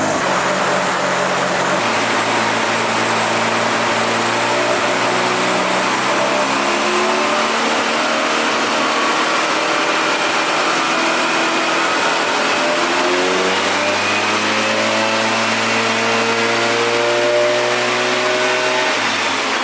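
Mazda FD RX-7's twin-turbo rotary engine running after its no-start fault is cured, the engine note shifting and slowly rising and falling in pitch.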